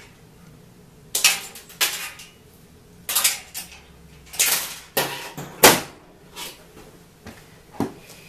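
Wire cutters snipping the lead wires of an old fluorescent ballast, with knocks as the metal ballast and fixture housing are handled: a string of sharp clicks and clatter, the loudest a little past halfway.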